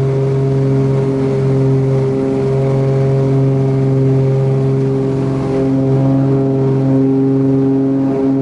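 Steady drone of a single-engine propeller airplane's engine and propeller in cruise flight, heard inside the cockpit: a loud, even hum that holds one pitch.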